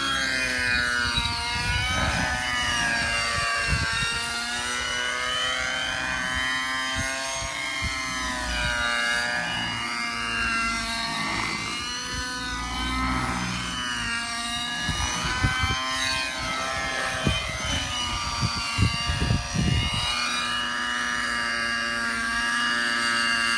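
Synergy N5C radio-controlled helicopter with an OS 55HZR nitro engine and rotors running in flight. Its pitch rises and falls continually as it swoops through mild 3D manoeuvres.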